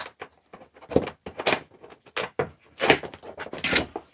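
Cardboard packaging being handled: an inner box slid up out of its cardboard sleeve, making a run of irregular scrapes, rubs and light knocks of cardboard.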